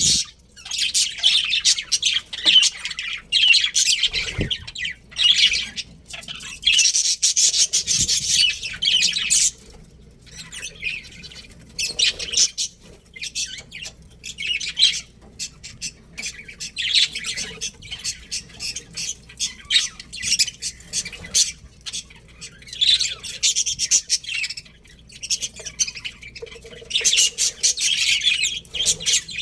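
A colony of budgerigars chirping and chattering in fast, busy bouts of a few seconds each, with short pauses between.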